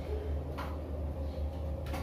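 Two faint short clicks of a wrench working on the water heater's inlet pipe fitting, about a second apart, over a steady low hum.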